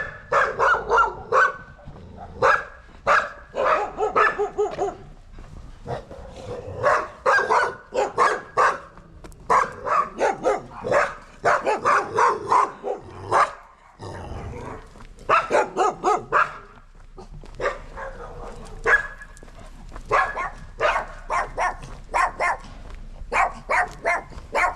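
Dogs barking in fast runs of sharp barks, with a short lull about halfway through: watchdog barking that serves as the house's 'alarm system'.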